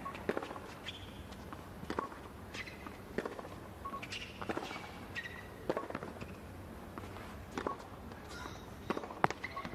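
Tennis rally on a hard court: sharp racket-on-ball hits about every one to two seconds, with ball bounces between them. Short high squeaks of players' shoes on the court come in between.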